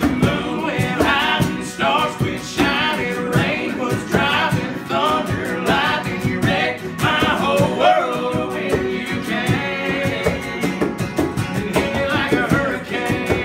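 Two acoustic guitars strummed as men sing a country song.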